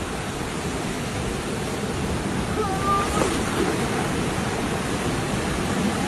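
Steady rushing of a waterfall, with a brief faint high call about three seconds in.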